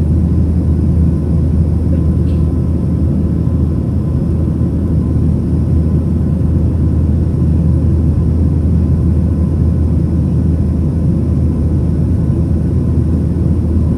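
Steady cabin noise of a Boeing 737-900ER in flight, heard inside the cabin from a window seat over the wing: a deep, even rumble of its CFM56-7B engines and the airflow, with a faint high steady tone above it.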